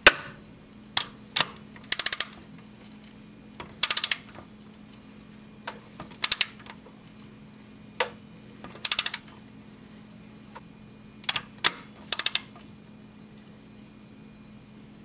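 Ratchet on a long extension clicking in short quick runs every two to three seconds, with single clicks between them, as it turns the crankshaft bolt of a 1.8L Ecotec engine by hand to line up the timing marks. A faint steady hum lies underneath.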